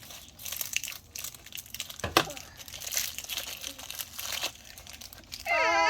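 Crinkly toy wrapping being handled and torn open, rustling and crackling unevenly, with a sharp knock about two seconds in. A child's high voice starts just before the end.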